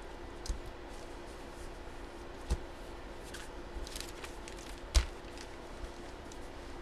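Objects being handled and set down on a table: three sharp knocks, the loudest about five seconds in, with light rustling and handling noise between them, over a steady low hum.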